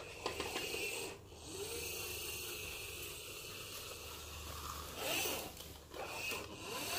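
Toy garbage truck pushed by hand along a carpet: a rough whirring rasp of its plastic wheels rolling, with a short break about a second in.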